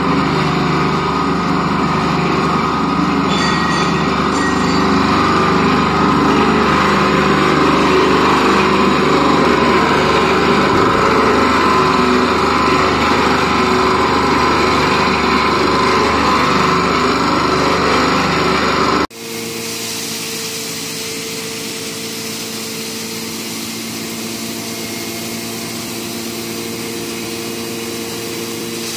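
Feed pellet line machinery running steadily: a flat die pellet mill with its electric-driven conveyors, loud and even. About two-thirds through it cuts to a quieter, steady hum from a hammer mill grinder with a couple of steady tones in it.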